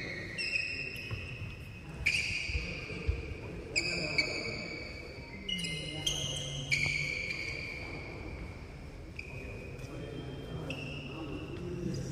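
Court shoes squeaking on a wooden badminton floor: a string of short, high squeaks as players shift their feet, with a few sharp taps and low voices talking in the hall.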